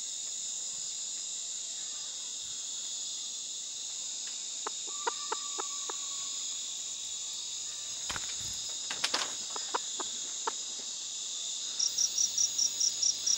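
Night chorus of crickets and other insects, a steady high-pitched drone, with a few short clucks from chickens in the middle. Near the end a single cricket starts chirping about four times a second.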